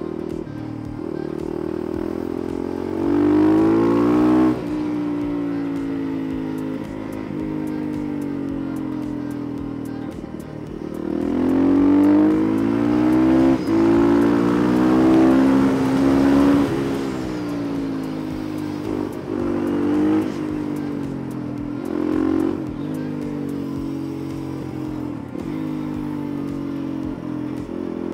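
Supermoto motorcycle engine under way, its pitch climbing and falling as it accelerates and shifts. It pulls louder for a moment about three seconds in and again for several seconds from about eleven seconds, with a few short throttle blips after that.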